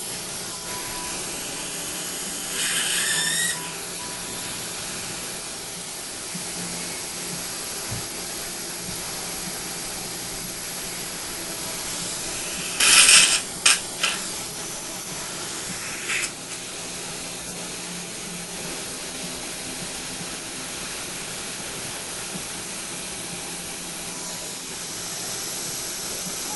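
Steady hiss of dental surgical suction. It is broken by a few louder hissing bursts: one about three seconds in lasting about a second, a quick cluster around the middle, and a brief one a couple of seconds after that.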